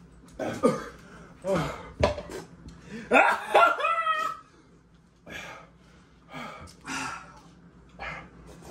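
A man's wordless pained cries and groans, loudest about three seconds in, followed by quieter sharp breaths, as he suffers the burn of an extremely hot chili chip.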